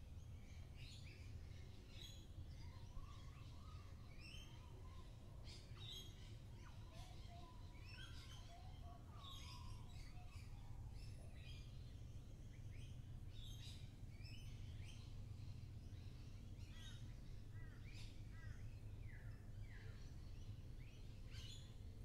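Many birds chirping and calling all around, quick high chirps and short sweeping notes overlapping, with a lower warbling phrase through the first half. A faint, steady low rumble runs beneath.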